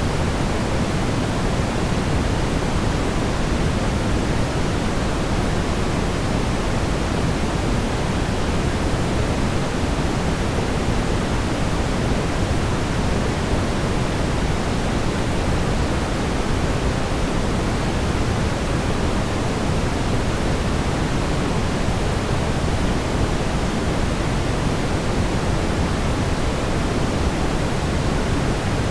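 Steady brown noise: an even, unbroken hiss and rumble, strongest in the low end and thinning toward the top, with no change in level.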